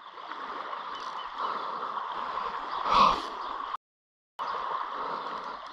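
Steady hiss of small waves lapping at the shoreline, with a brief louder swell about three seconds in. The sound cuts out completely for about half a second a little before four seconds in.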